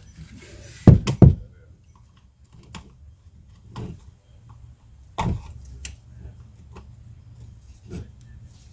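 Scattered clicks and taps of hands and a pick working a new pull rope through the holes of a mower's recoil starter, with two heavier knocks about a second in.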